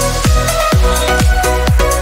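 Background electronic music with a steady kick-drum beat and sustained synth notes.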